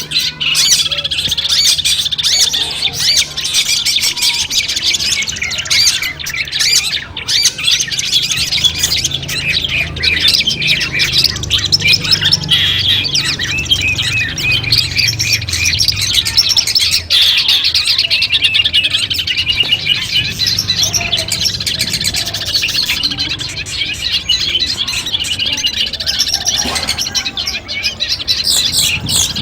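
Long-tailed shrike (cendet) singing a fast, continuous chattering song of harsh squawks and chirps. A low hum sits underneath through the middle.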